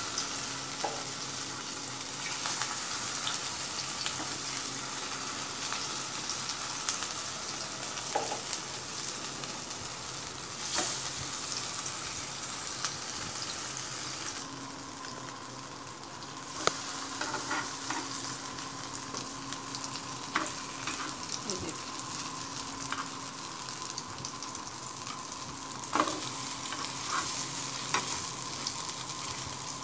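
Chicken shami kababs shallow-frying in hot oil in a flat pan, sizzling steadily, with scattered sharp pops and clicks. The sizzle dips briefly about halfway through, and a faint steady hum runs underneath.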